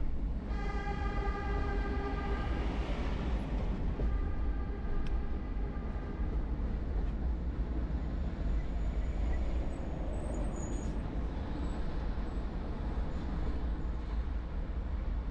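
Steady road and engine rumble of a car driving in slow city traffic, heard from inside the car. A long steady pitched tone sounds about half a second in for a couple of seconds, and a fainter one follows about a second later.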